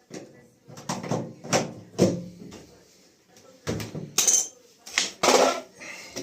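Irregular knocks and clatter of hard parts being handled, about ten sharp strikes with the loudest ones in the second half.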